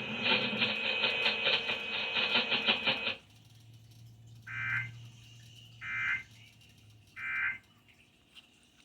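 Weather-radio broadcast audio buzzing and pulsing until about three seconds in. Then come three short screeching digital data bursts about a second apart, the SAME end-of-message code that closes a NOAA Weather Radio alert.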